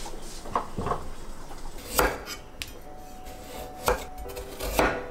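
A few separate knocks of kitchen prep work. Near the end a kitchen knife chops raw potato against a wooden cutting board.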